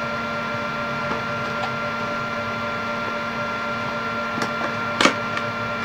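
Steady machine-like hum with several fixed tones, and a sharp click about five seconds in with a fainter one just before it, as the cardboard phone box is handled.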